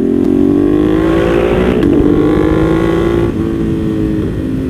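Ducati motorcycles accelerating hard through the gears, the 2015 Diavel with its full Termignoni race exhaust running alongside, over wind rush. The engine note climbs steadily, then drops at upshifts twice near the end.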